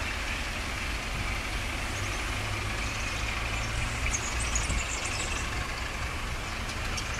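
Electroputere LDE 2100 (class 60) diesel-electric locomotive's Sulzer diesel engine working under load as it pulls a freight train away from a standstill: a steady low drone.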